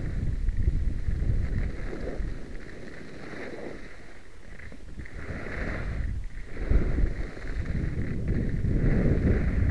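Wind buffeting the microphone while skis scrape and hiss over the snow on a downhill run. The sound eases off in the middle and grows louder again about two-thirds of the way through.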